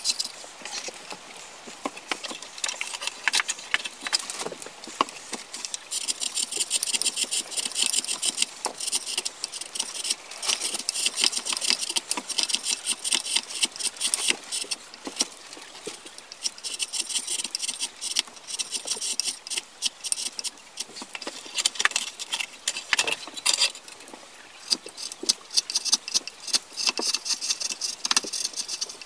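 Hand chisel carving out the inside of a wooden kuksa cup blank: the blade is pushed through the wood in runs of quick, crackling, rasping cuts lasting a few seconds each.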